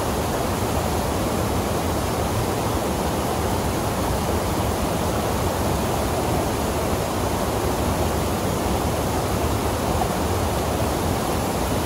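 Steady rush of whitewater rapids and a small waterfall pouring into a rock pool.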